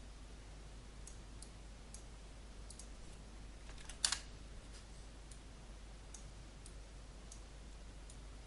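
Faint computer mouse clicks, one every half second to a second, with a louder key press, a quick double tap, about four seconds in. A low steady hum sits underneath.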